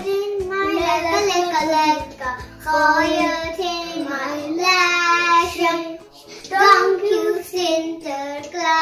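Young children singing a song, in phrases broken by short pauses.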